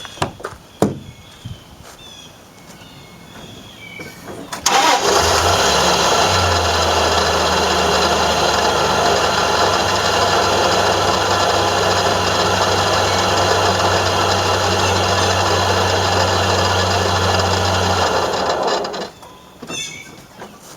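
A 2003 Dodge Dakota pickup's engine starts about five seconds in, runs for about fourteen seconds with a loud, steady noise over a low hum, then shuts off. The noise comes from the air-conditioning compressor, whose bearing is shot and disintegrating.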